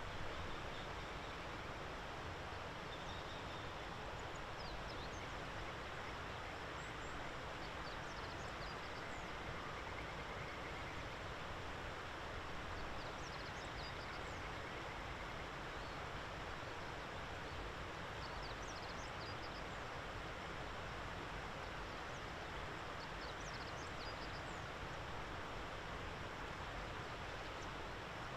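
Steady outdoor background hiss with faint, short, high bird calls coming in small clusters every few seconds.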